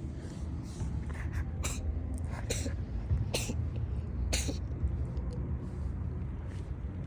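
A cat sneezing repeatedly, four sharp sneezes about a second apart with a couple of smaller ones just before, over a steady low rumble.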